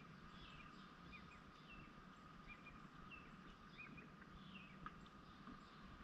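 Faint small birds chirping and twittering in short calls every second or so, over a steady faint hum.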